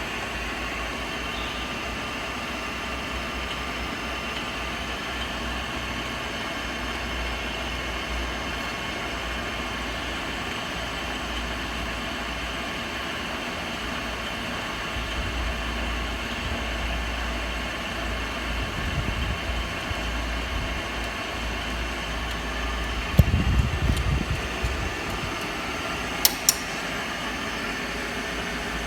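Four-spindle tapping drill machine running with a steady mechanical hum and low rumble. A cluster of clunks sounds about 23 seconds in, and two sharp clicks a few seconds later.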